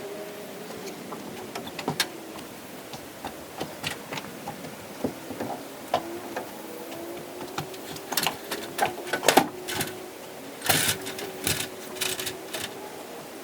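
Scattered knocks and clicks of hand work on wood framing and sheathing, coming thicker and louder in the second half, over a steady hum.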